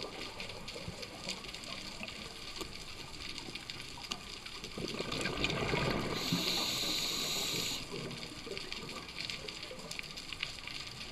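Scuba diver breathing through a regulator underwater: a bubbling exhale about five seconds in, followed by a hissing inhale lasting about a second and a half. Steady crackling and clicking continue throughout.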